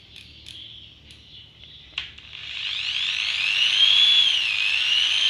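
Electric drill: a click about two seconds in, then the motor runs up with a high whine that rises, dips briefly and rises again.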